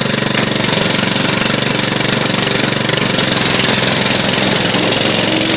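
Engine of an old John Deere lawn tractor running steadily as the tractor drives off.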